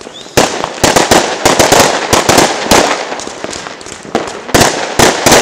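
Fireworks going off: a fast, irregular run of sharp bangs with crackle between them. The bangs ease off in the middle and pick up again near the end.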